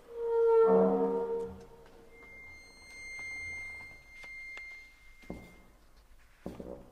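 Contemporary chamber music for bassoon, accordion and percussion: a loud sustained note rich in overtones swells in and fades within about a second, then a thin high tone is held for several seconds, and two short percussive knocks sound near the end.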